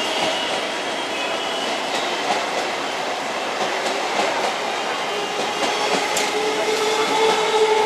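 EMU electric suburban train rolling into the station, its wheels running on the rails with a few clicks over the joints. A steady whine comes in near the end.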